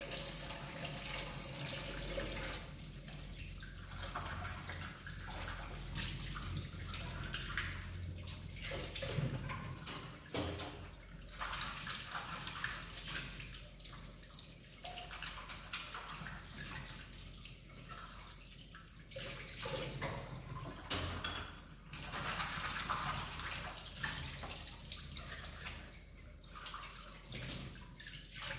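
Kitchen tap water running and splashing into a stainless-steel sink as dishes are washed by hand; the splashing briefly drops away several times.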